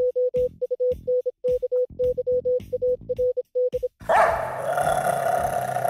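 Rapid electronic beeps at one pitch over deep thumps, a title-card sound effect. About four seconds in, a dog's growl breaks in and holds.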